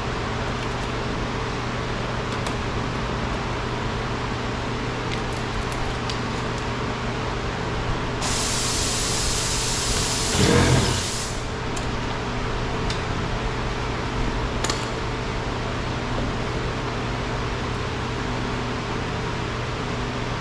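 A steady mechanical hum with a few light clicks, then about eight seconds in a hiss that lasts about three seconds and is the loudest sound.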